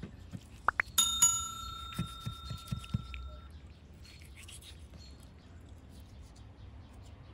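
Subscribe-button sound effect: two quick mouse clicks, then a bell dinging twice and ringing out for about two and a half seconds. A few low knocks, like a knife meeting a wooden cutting board, fall under the ringing.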